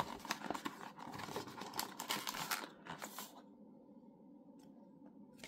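Plastic packaging crinkling and tearing as a blind-box figure is unwrapped, with a few small clicks, for about the first three seconds.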